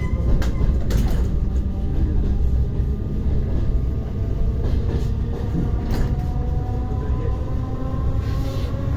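Ride noise of an ER9T electric multiple unit under way: a steady low rumble of the wheels on the rails, with a few sharp clicks over rail joints. A motor whine rises slowly through the second half as the train picks up speed.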